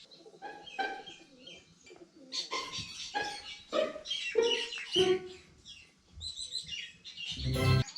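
Birds chirping and calling in quick succession, many calls falling in pitch, mixed with pigeons cooing; a louder, lower call comes near the end.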